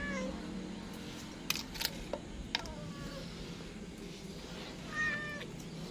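A cat meowing three times, a couple of seconds apart, each call falling in pitch, with a few sharp knocks between the first and second meow.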